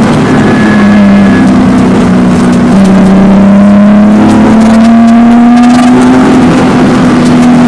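In-cabin sound of a BMW rally car's engine running hard under load. The pitch climbs as it pulls, then drops sharply at gear changes, once right at the start and again a little under three seconds in.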